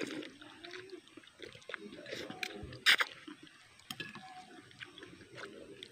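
People eating noodle soup: slurping noodles and broth, with metal spoons clicking and scraping against ceramic bowls, and one loud sharp sound about three seconds in.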